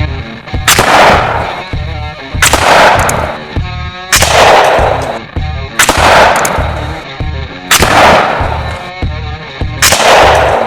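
Six loud, sudden blasts of compressed air, about every two seconds, each dying away over about a second, over rock music with a steady beat.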